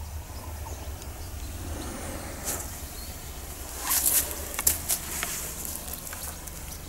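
Rustling footsteps in grass and dry fallen leaves, with a few crisp crackles around the middle, over a low steady rumble on the microphone.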